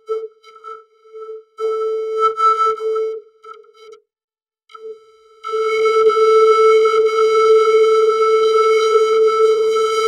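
A vocoded, synthesizer-like tone held on a single pitch: it stutters on and off through the first four seconds, drops out for a moment, then from about five and a half seconds in sounds as one continuous, steady note.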